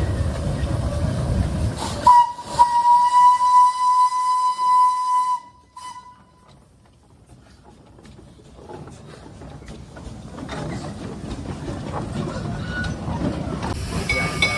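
Steam locomotive whistle sounding one steady single-pitch blast of about three seconds, followed by a brief short toot. Low rumble before it, and hissing steam building up again in the later seconds.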